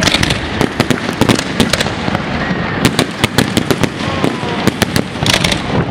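Aerial fireworks bursting in quick, irregular succession: many sharp bangs with crackling in between.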